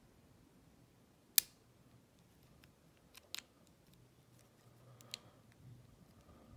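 Small sharp clicks of a pick and tension wrench working in a Ruko lock's keyway. The loudest comes about a second and a half in, a quick double click a little past three seconds, and one more just past five seconds.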